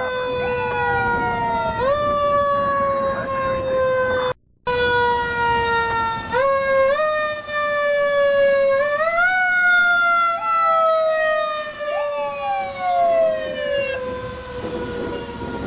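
Siren of a Pierce heavy rescue fire truck, a mechanical siren: it is spun up in quick bursts and left to coast down slowly each time while the truck approaches and passes. A second, faster falling siren tone cuts in twice past the middle. The sound drops out briefly about four seconds in.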